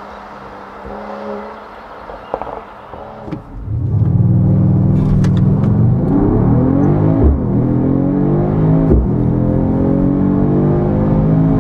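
Mercedes-AMG GT 53's 3.0-litre turbocharged straight-six with the AMG Performance exhaust, heard faintly at first as the car approaches. About three and a half seconds in it gets loud, heard from inside the cabin accelerating hard, the revs climbing steadily and dropping at two upshifts, each with a short thump.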